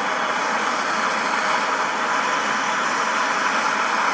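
Propane torch burning with a steady rushing hiss, its flame held on aluminum to heat it until it melts the brazing rod fed into the joint.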